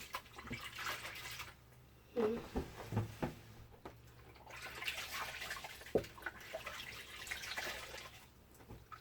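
Socks being washed by hand in water: splashing and sloshing in two spells, with a few short knocks and squelches between them.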